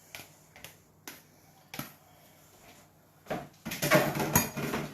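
A spoon clinking and scraping against a baking dish as mixed vegetables are spooned in: a few light clicks, then a denser clatter from about three seconds in.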